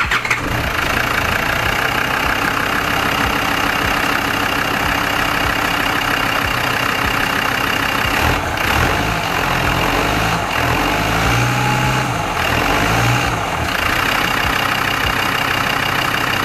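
Land Rover Td5 2.5-litre five-cylinder turbodiesel running at idle, with the revs swelling briefly a few times around the middle. It has just been refitted with a skimmed, de-webbed exhaust manifold on uprated studs to cure a warped-manifold exhaust leak.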